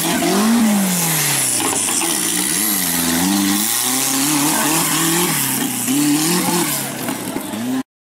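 Off-road buggy's engine revving up and down over and over, then cutting off abruptly near the end.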